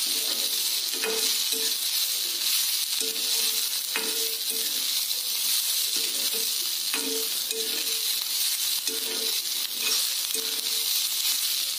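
Sliced onions sizzling in oil in a black kadai, stirred with a metal spatula that scrapes the pan in short repeated strokes, with a few sharp taps. The onions are being fried until golden brown.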